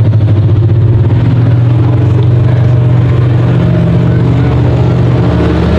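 Car engines running in a steady, loud, low drone, with one engine's pitch rising slowly in the second half as it speeds up.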